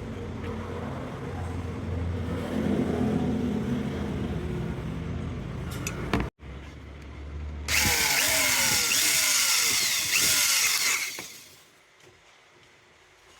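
Handheld electric power tool running: a steady low motor hum for about six seconds, then, after an abrupt break, a louder, hissy stretch with falling whines that lasts about three and a half seconds and stops near the end.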